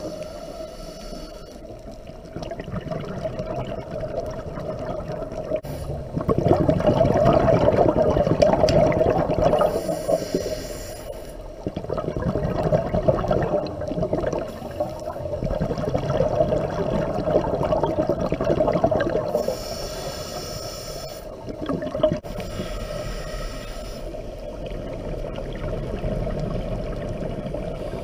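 Scuba regulator breathing heard underwater: long gurgling rushes of exhaled bubbles lasting several seconds, broken by shorter hissing inhalations, over a steady low hum.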